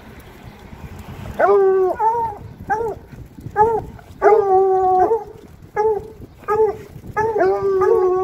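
Bluetick coonhounds howling, a run of short bawling barks mixed with longer drawn-out howls, about one call every second or less, starting about a second and a half in. Near the end two dogs' voices overlap.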